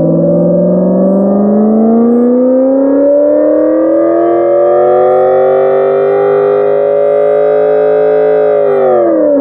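Imitation V8 engine sound from a homemade optical sound generator: a motor-spun cardboard disc with an eight-cylinder pattern, read by a photo-reflector and played through an amplifier and speaker. It is free-revving, the pitch climbing steadily for about five seconds, holding, then dropping quickly near the end as the revs fall.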